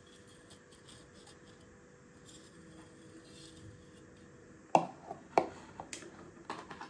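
Knife blade scraping faintly around the inside rim of an aluminium pot, loosening a set layer of cream from the sides. It is followed about two-thirds of the way in by a few sharp clicks and knocks, the first the loudest.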